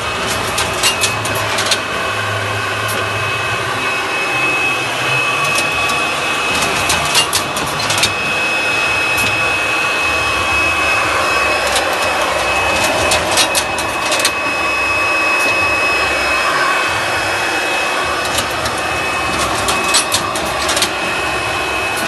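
Moba M16 poultry bird-bagging machine running: a steady mechanical hum with a high, even whine, broken by clusters of sharp clacks that come back every six seconds or so.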